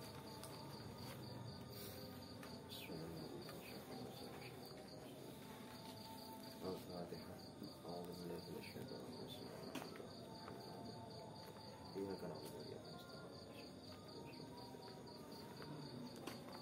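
Insect chirping in a steady run of evenly spaced, high-pitched pulses, with faint distant voices now and then.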